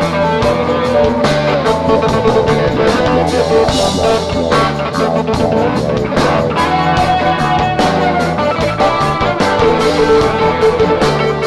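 Live rock band playing an instrumental jam: an electric guitar lead holds and bends notes over bass guitar and a steady drum-kit beat.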